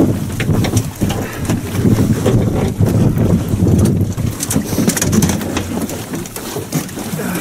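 Wind buffeting the microphone on an open boat at sea: an uneven low rumble, with scattered small clicks and knocks.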